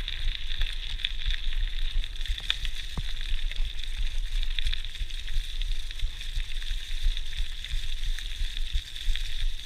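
GT Outpost Trail mountain bike's tyres rolling fast over a leaf-covered gravel track: a steady crackling rustle with many small clicks over a low rumble, picked up by a chest-mounted GoPro.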